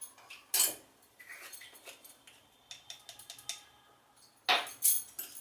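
A spoon clinking and tapping against a bowl as spice is scooped and added to the kabab mix, with a sharp clink about half a second in, lighter taps in the middle and two louder clinks near the end.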